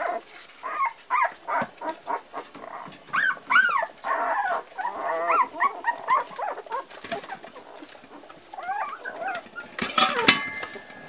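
Litter of four-week-old Parson Russell Terrier puppies squealing as they play, short high-pitched calls rising and falling one after another, with a few sharp clicks about ten seconds in.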